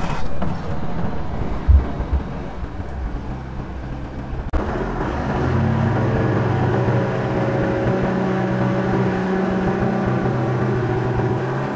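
Deutz diesel engine of a Genie telehandler running at a steady idle, with an abrupt change in the sound about four and a half seconds in.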